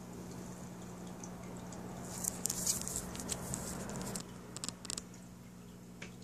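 A soft swell of rustling with a cluster of sharp crackling clicks between about two and five seconds in, over a steady low hum.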